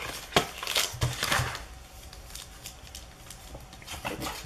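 Card packaging being handled and opened off-picture: a sharp click, then about half a second of crinkling and rustling, then a few faint ticks.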